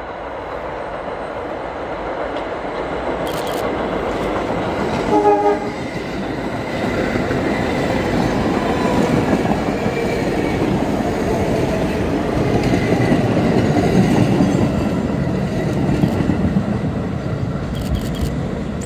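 Budd R32 subway train running through the station without stopping. Its horn gives one short blast about five seconds in as it approaches. The rumble of its wheels on the rails then builds and is loudest as the cars pass close by, easing slightly near the end.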